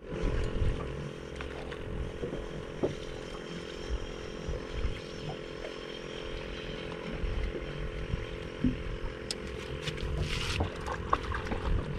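Steady low motor hum, even in pitch throughout, with a few light clicks and knocks near the end.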